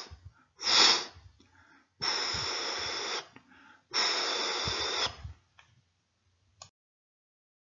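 A man's mouth imitating heart murmurs. A short hiss swells and fades like a crescendo-decrescendo mid-systolic murmur, then two longer, even hisses of about a second each imitate a holosystolic, bar-shaped murmur. A faint click comes near the end.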